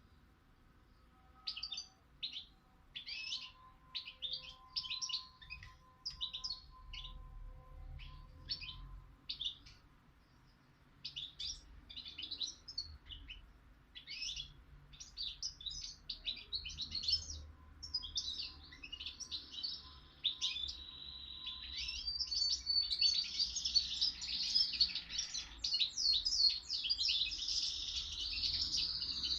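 A young songbird singing: short separate chirps and phrases at first, then, about two-thirds of the way in, a louder continuous song with a held high note and rapid trills. The bird is eight months old and has learned its song only from its parents.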